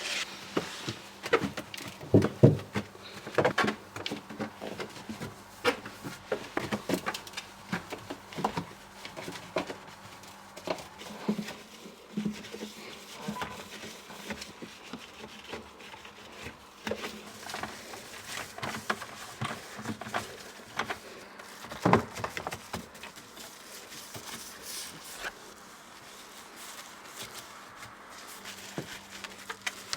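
Cleaning a fridge interior by hand: a cloth rubbing and wiping, with irregular light knocks and clicks as things are handled.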